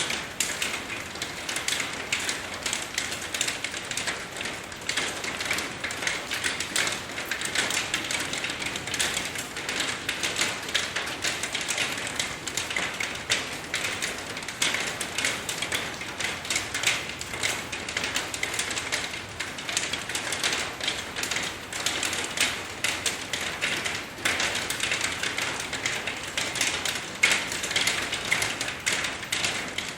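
Steady rain: a dense, irregular patter of close drops ticking on a surface.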